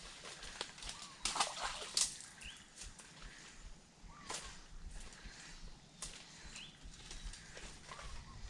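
Scattered sharp clicks and ticks from handling a spinning rod and reel, loudest about one to two seconds in, with short high bird chirps every second or two.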